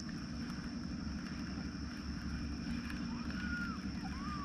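Steady low outdoor rumble with a thin, constant high-pitched hum over it. From about three seconds in come a few short, rising-and-falling whistled bird calls.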